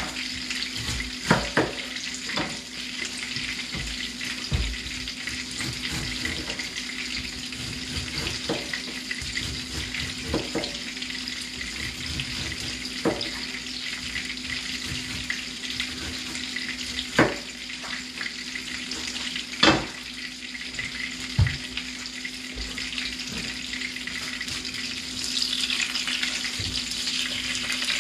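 Coconut-crusted fish fillets frying in oil in a skillet, a steady sizzle, with about ten scattered knife knocks on a cutting board as a pineapple is cut up. The sizzle grows louder near the end.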